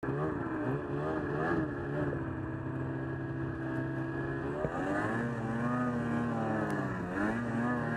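Ski-Doo Summit 600 Sport snowmobile's two-stroke twin engine running under throttle as the sled rides through snow. Its pitch holds steady for the first few seconds, rises about five seconds in, dips near seven seconds, then climbs again.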